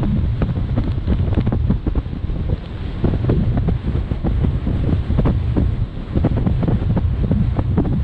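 Wind buffeting the camera microphone on the open deck of a moving ferry: a loud, gusty low rumble that flutters up and down.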